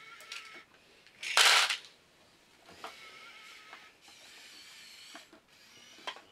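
Small electric motors and gearboxes of a Kyosho 1/50 radio-controlled Komatsu PC1250-8 excavator model whining as it moves, with scattered clicks and one short loud rasp about a second and a half in.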